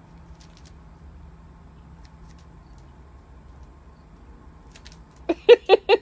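Faint steady background hum, then near the end a hen clucking in a quick run of short calls, about five a second.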